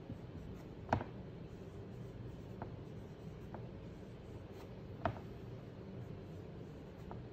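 Someone writing by hand: faint writing sounds with a few short, sharp taps, the loudest about a second in and about five seconds in, over a steady low hum.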